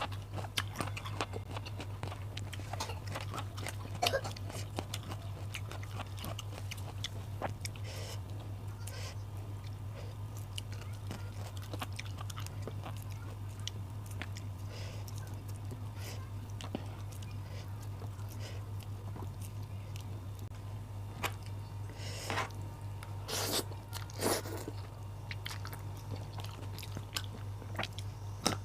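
Close-up chewing and crunching of raw vegetables and rice, with wet mouth clicks, over a steady low hum. A few louder crunchy bites come near the end.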